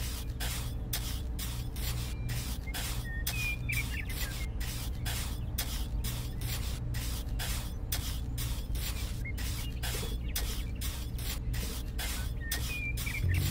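Small metal palette knife spreading and smoothing wet cement, a steady run of short wet scraping strokes about three a second, over a low steady hum.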